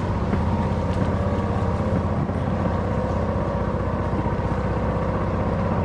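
Golf cart driving along a dirt woodland trail, heard from aboard, its motor running with a steady low hum.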